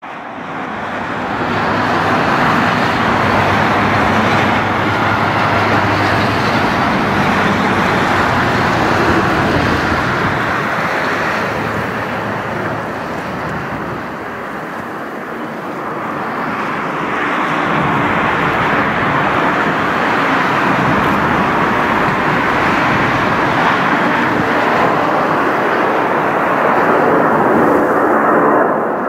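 McDonnell Douglas MD-11 trijet at takeoff thrust, a loud, steady jet-engine noise. It eases a little around the middle and builds again near the end as the aircraft climbs overhead.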